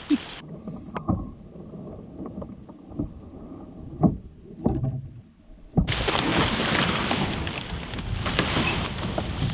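Knocks and bumps from a canoe hull as someone clambers out of it through dry reeds. From about halfway there is a steady rough scraping as the canoe is hauled up onto the grassy bank.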